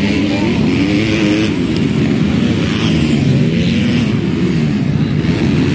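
Several motocross bikes' engines racing, the pitch of each rising and falling as they rev, shift and pass, over a steady noisy wash.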